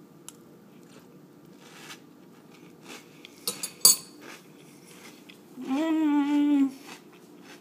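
A mouthful of crunchy ring cereal in milk being eaten from a metal spoon: a few sharp clicks about halfway through. Then a hummed "mmm" of enjoyment, held for about a second near the end.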